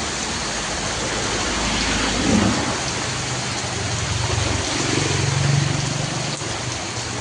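Steady downpour of rain. A low rumble swells in the middle and fades near the end.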